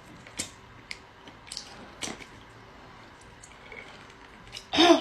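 Close-miked eating: a few sharp crunching bites and wet chewing clicks, scattered over the first couple of seconds and then sparser.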